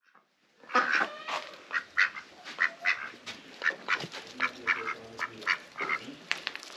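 Mallard-type domestic ducks quacking, short quacks repeated about two or three times a second, starting about a second in.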